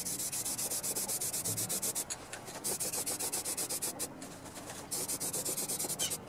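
Aerosol spray can of engine enamel hissing in long passes as a first coat goes on, with short breaks about two and four seconds in.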